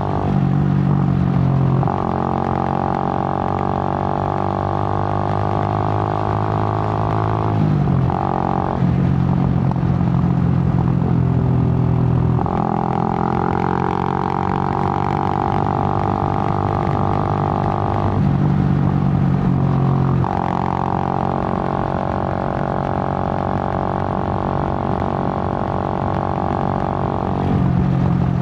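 Suzuki GN125's single-cylinder four-stroke engine running while the bike is ridden. It holds a steady note for stretches of a few seconds and changes tone abruptly about seven times, as with throttle and gear changes.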